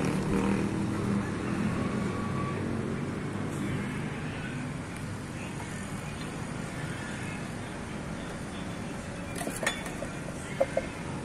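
A motor vehicle's engine running, fading out over the first few seconds, under steady outdoor traffic noise. A few sharp knocks come near the end.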